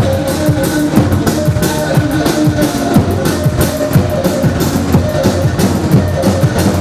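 Loud amplified dance music for a Kurdish halay: a quick, steady drum beat under a held melody.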